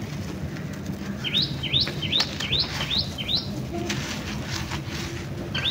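Dry cement-and-sand mixture crumbling and trickling out of squeezing hands, a soft patter of grains and lumps. Over it a bird calls a quick series of six short, high, rising chirps, about two and a half a second, between about one and three and a half seconds in, and once more near the end.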